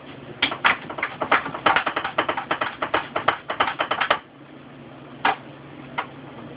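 Eggplant being sliced on a handheld mandoline: a quick run of crisp slicing strokes, several a second, for about four seconds. Then a pause and two single strokes near the end.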